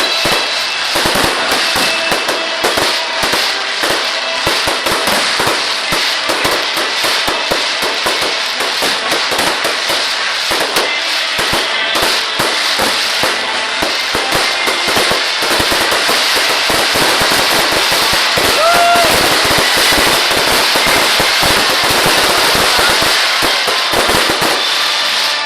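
Fireworks display: a dense, continuous barrage of bangs and crackling pops, with music playing underneath.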